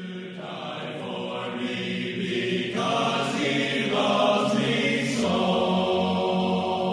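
Choral music: voices singing slow, held chords over a steady low note, fading in at the start.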